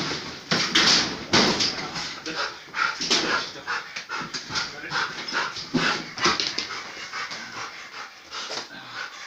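Dog panting hard with short whimpers, amid irregular knocks and scuffles as it moves and jumps about.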